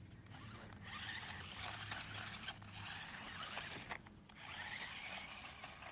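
Small toy remote-control car driving, its tyres and motor giving a scraping, scrabbling sound over the ground in three spurts.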